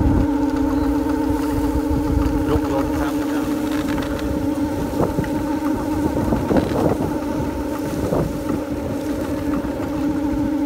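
Bamboo windmills (luk lom) turning in the wind, together giving a steady drone of several held tones at different pitches, with a few short knocks near the middle.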